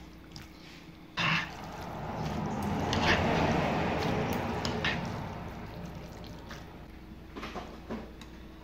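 Wet, sticky squelching of jajangmyeon noodles being lifted and stirred through thick black bean sauce with metal chopsticks, with a few sharp clicks of the chopsticks against the bowl. The squelching swells about a second and a half in and fades out over the next few seconds.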